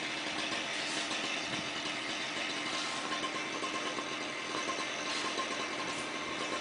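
An engine running steadily at an even speed, with a faint constant hum.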